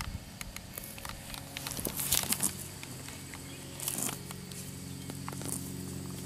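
Rustling and crackling of grass and dry leaves as someone moves and stands among them, with scattered light clicks and the loudest crackly bursts about two and four seconds in.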